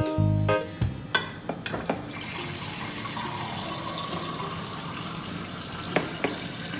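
Water running steadily from a Samsung French-door refrigerator's door water dispenser, with a few light clicks about a second in and again near the end.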